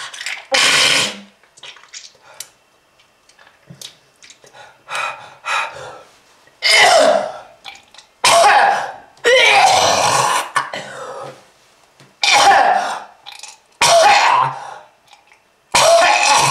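A person coughing hard and clearing the throat over and over: about eight loud, rough hacking bouts separated by short pauses, with smaller catches in between.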